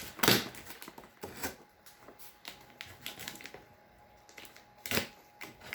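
Handling of a boxed package: a few sharp clicks and taps with light rustling, the loudest just after the start and again about five seconds in.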